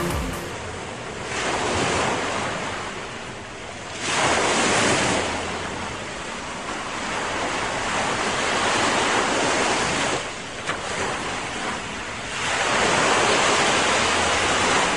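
Sea waves breaking and washing on the shore, surging up and drawing back about four times.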